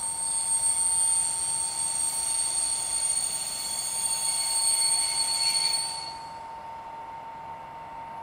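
High-pitched metallic brake squeal from a class 460 electric multiple unit as it slows to a stop. The squeal holds steady pitches, then fades out about six seconds in as the train comes to a halt.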